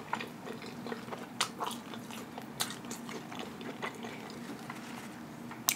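Close-up mouth sounds of a person chewing a mouthful of hamburger with lips closed: scattered wet clicks and smacks, with one sharp click near the end.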